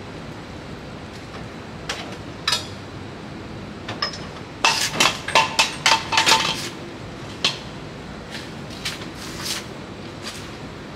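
Metal utensils clinking and clanking on a roti stall's pan, with scattered single knocks and a quick run of ringing strikes about halfway through.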